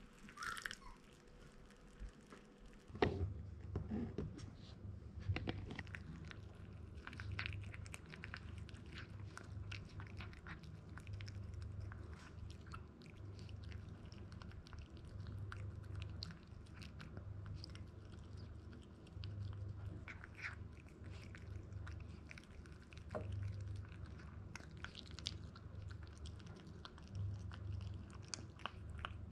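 Toy poodle puppy eating water-soaked kibble from a glass bowl: a steady, uneven run of small chewing crunches and clicks. About three seconds in, the chewing takes over from a brief pour of water from a kettle onto the kibble.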